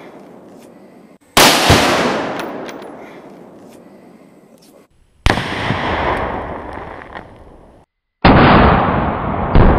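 Tannerite binary exploding targets detonating when hit by rifle fire: a series of sharp booms, each followed by a long rolling echo that fades slowly. The booms fall about three seconds apart, with a further blast about a second after the last one.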